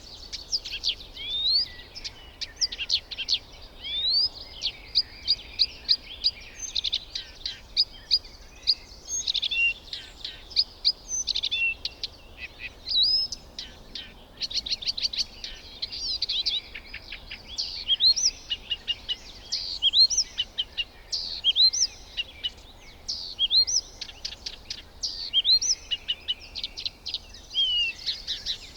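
Several birds chirping and whistling without pause, a busy mix of quick sharp notes and short rising and falling whistles.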